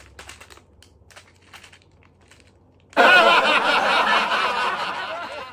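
Plastic sachet of a birth-control pill pack being handled close to the microphone: faint small clicks and rustles at first, then about three seconds in a sudden loud crinkling that slowly fades.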